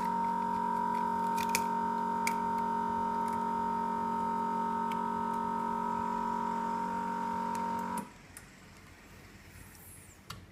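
Vacuum pump of an LCD separator machine running with a steady hum, then switched off suddenly about eight seconds in. A few light clicks sound over it.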